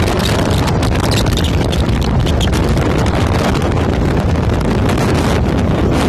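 Blizzard wind buffeting the microphone in a steady rush with heavy low rumble, over the engine of a Ford F250 pickup running as it spins donuts in snow.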